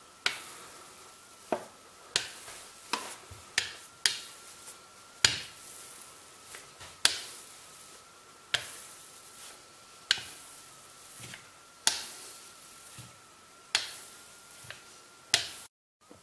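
Irregular sharp clicks and knocks, about one a second, from a rolling pin with wooden handles as it works a sheet of wholewheat dough on a cloth-covered surface.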